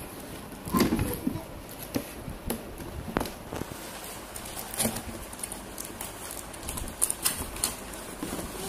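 Cardboard box and toy packaging being handled and opened: scattered irregular taps, clicks and rustles.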